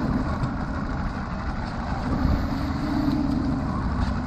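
Mercury outboard motor idling, a steady low rumble with water churning around the stern.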